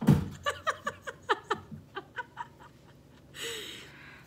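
A woman laughing in a quick run of short giggles for about two seconds, then a brief breathy sound.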